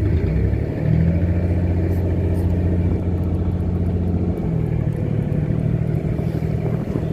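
Fishing boat's engine running steadily, its low note shifting slightly about a second in and again a few seconds later.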